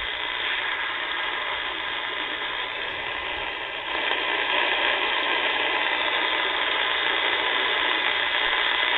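Static hiss from a radio receiver's audio, a steady rushing noise that gets louder about four seconds in.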